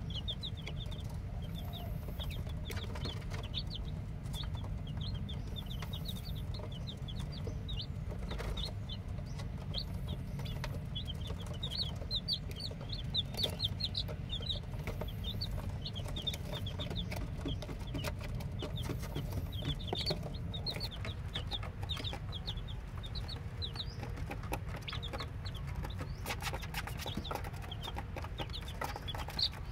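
A brood of newly hatched chicks peeping continuously, many short high chirps overlapping one another, over a steady low hum.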